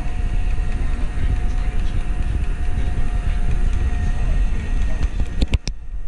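iRobot Roomba robot vacuum running on carpet: a steady whir from its vacuum motor and brushes, with a faint steady tone through it. A few sharp clicks come near the end.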